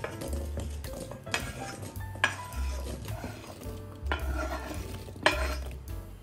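A kitchen utensil stirring and scraping against a container in four loud strokes about a second apart, over background music.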